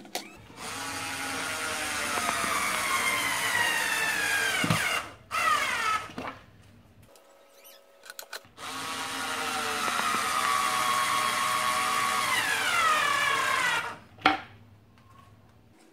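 Skil 360 Quick Select 4V cordless screwdriver driving screws into wood, in two long runs of the motor. Each run's whine falls in pitch as the screw goes in. There is a short blip of the motor after the first run and a click just after the second run stops.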